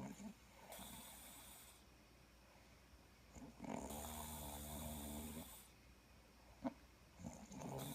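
A sleeping person snoring: a long, buzzing snore about halfway through, with hissing breaths about a second in and again near the end.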